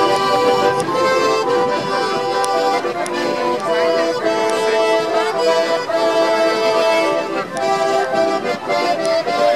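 Several concertinas played together while walking, a traditional tune in held chords that change about every second.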